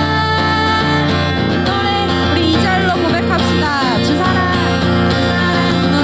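Live worship music: acoustic guitar accompanying a melodic singing voice.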